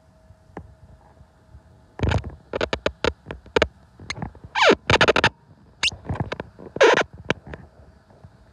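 Handling noise on the phone's microphone: a run of loud short rubs, scrapes and knocks with a few squeaky sliding sounds, starting about two seconds in and dying away near the end.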